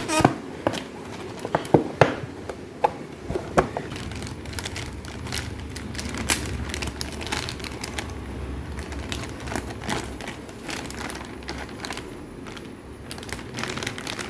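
Motherboard packaging being handled: crinkling and rustling, with several sharp taps and clicks in the first few seconds.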